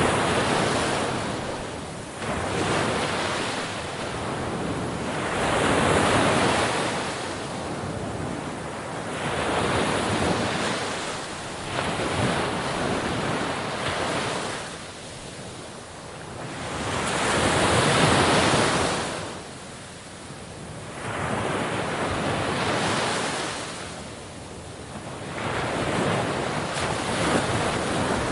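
Sea waves breaking on a shore: a continuous rush of surf that swells and falls back, with a surge roughly every four seconds.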